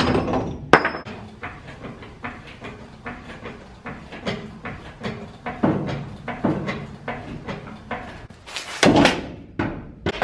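Metal knocks, clanks and scrapes of a pry bar working against the pickup's rear leaf spring and its hanger as the old spring is levered loose. The strikes come irregularly, with loud ones near the start and a loud cluster near the end.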